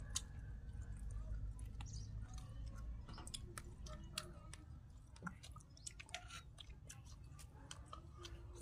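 Several people chewing and smacking their lips as they eat chicken curry with their fingers: many short, sharp mouth clicks scattered throughout, over a low rumble.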